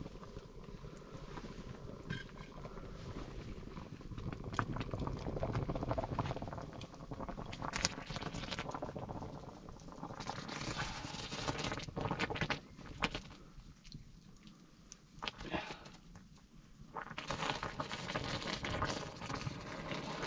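A wooden stick stirring and beating dhido, a thick flour-and-water porridge, in a pot over a wood fire: irregular scraping, squelching and knocking strokes against the pot as the mix stiffens.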